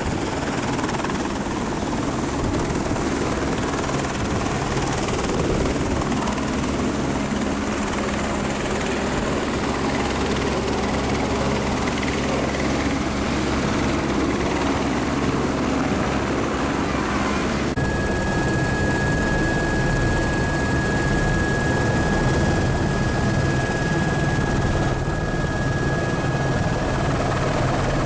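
Helicopter running steadily, a continuous dense noise of rotor and turbine. About eighteen seconds in, the sound changes abruptly and a steady high whine comes in.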